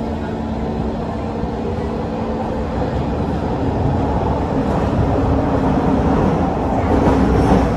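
Cabin noise of a Kawasaki C151 metro train running through a tunnel: a steady rumble of wheels and running gear, growing louder from about halfway through. A steady low hum stops about three seconds in.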